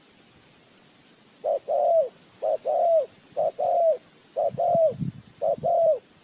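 Spotted dove cooing: five two-part coos about once a second, each a short note and then a longer one that drops in pitch at its end.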